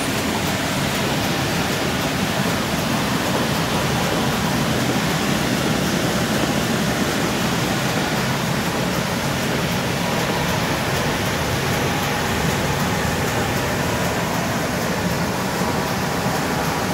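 Autobond Multi 76 sheet laminating line running at production speed, with its sheet feeder, thermal laminating rollers and flying-knife cross cutter making a steady, even machine noise.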